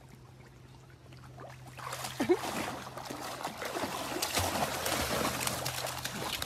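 Yellow Labrador puppy wading and splashing in shallow pool water: scattered splashes and sloshing begin about two seconds in and continue, with a short rising squeak just after they start and a low steady hum underneath.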